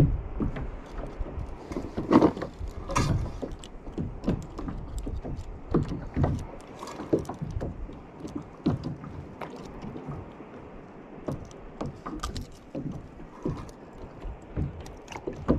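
Water lapping against a kayak's plastic hull, with irregular small knocks and crinkling as a fish in a plastic bag and the fishing line are handled; the loudest knocks come about two and three seconds in.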